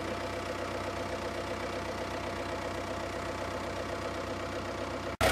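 White 2-60 four-wheel-drive tractor's engine running steadily at a low, even speed. A sudden brief break comes near the end, after which the engine sounds louder.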